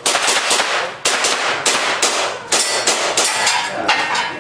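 Airsoft pistol firing a rapid string of shots, many of them in quick pairs, each a sharp crack with a short echo.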